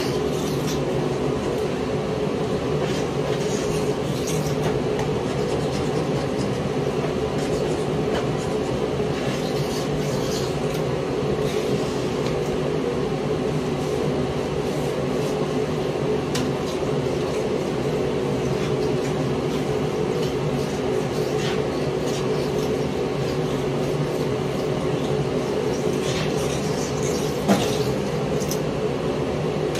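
A steady mechanical hum runs throughout, with short scraping strokes of a hand scraper stripping old coating off a bathtub scattered over it and a sharper click near the end.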